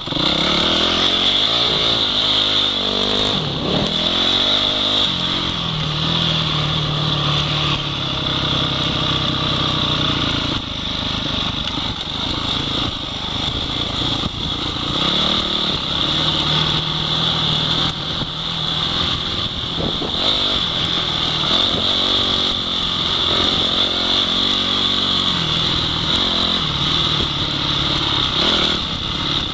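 Off-road motorcycle engine running under load on a trail, its pitch rising and falling again and again as the throttle is opened and closed. It is heard up close, from the rider's helmet.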